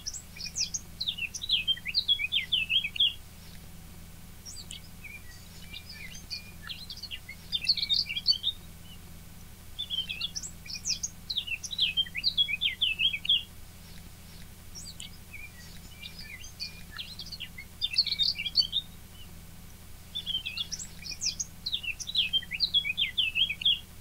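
A songbird singing: five phrases of quick, high warbling notes, each about three seconds long, with short pauses between them.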